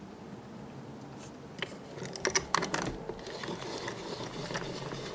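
Rapid, irregular clicks and knocks starting about a second and a half in, loudest around the middle: a window being hurriedly closed and handled. Faint steady rain hiss underneath.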